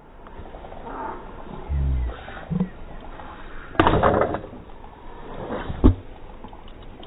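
Soccer ball thrown hard into a springy rebound net, hitting the mesh about four seconds in, then a sharp thud about two seconds later as the rebound is caught in a diving save.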